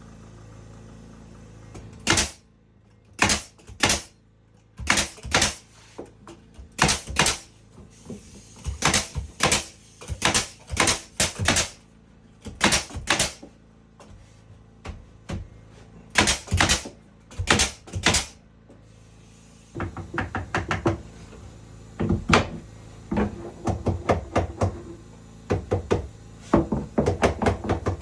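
Hammer blows on wood: separate heavy strikes, often two or three at a time, starting about two seconds in, then from about two-thirds of the way through, quicker, lighter taps.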